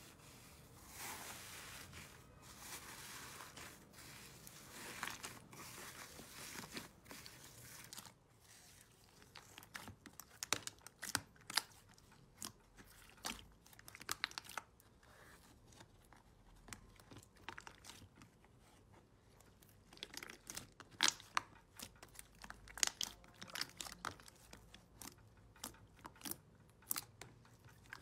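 Fluffy blue slime being pressed and kneaded by hand in a plastic tub, crackling densely for the first several seconds, then giving off scattered sharp crackles and pops.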